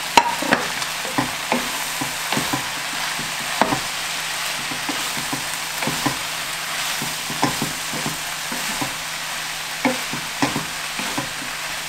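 Sliced mushrooms and carrot frying in olive oil in a sauté pan: a steady sizzle, with a wooden spatula stirring and knocking irregularly against the pan. A sharp knock right at the start is the loudest sound.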